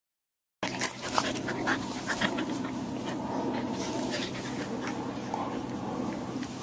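An Australian Terrier and a larger dog play-fighting, with panting. The sound starts suddenly about half a second in, with a cluster of short sharp clicks in the first two seconds.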